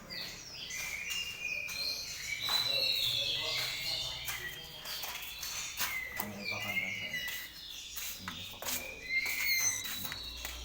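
Captive white-rumped shamas (murai batu) calling repeatedly: short, high chirps and whistled glides that overlap one another, with scattered sharp clicks between them.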